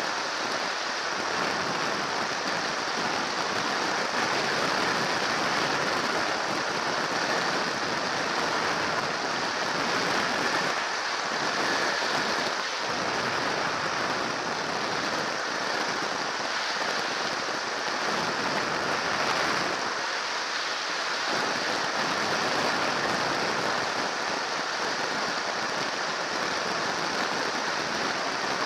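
Steady rushing wind noise and engine noise of a weight-shift microlight trike in flight on final approach, heard through a microphone mounted on the trike with the airflow blowing across it.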